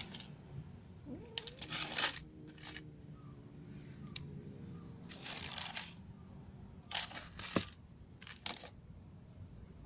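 Dry cat kibble poured and pushed around in a clear plastic tub, in several short rattling, crunching bursts.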